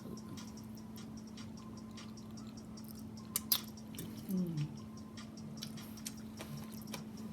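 Close-up eating sounds: a person chewing food, with many small wet mouth clicks and a couple of sharper clicks about three and a half seconds in, then a short hummed "mm". A steady low hum sits underneath.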